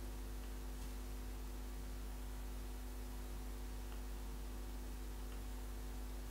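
Steady low electrical hum with faint hiss: room tone, with no distinct sound of the thread being handled.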